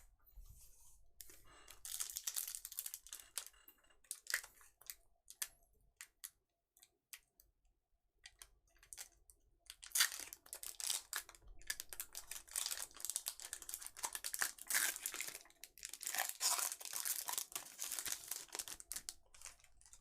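Foil booster pack wrapper crinkling and being torn open, with cards shuffled and clicked between the hands; the rustling comes in a short stretch near the start and a longer one from about halfway through.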